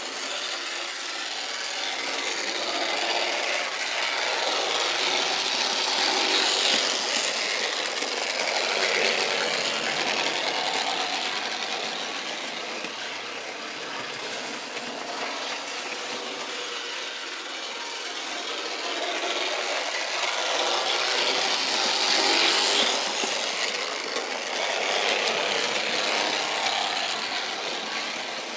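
HO-scale model train running on the layout's track: a steady whirring rush of motor and wheels on the rails that grows louder and fades away again twice.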